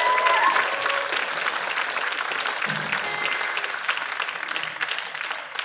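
Audience applauding after a live band's song, with a few cheers and whoops near the start.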